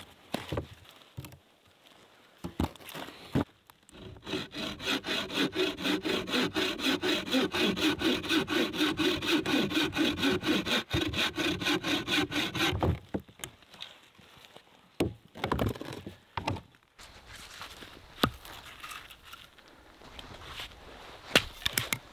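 Hand saw cutting through a birch log with fast, even back-and-forth strokes for about nine seconds. Before and after the sawing come a few scattered sharp knocks of wood, the loudest near the end.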